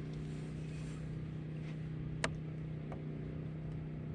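A boat motor hums steadily at an even pitch, with one sharp click about two seconds in.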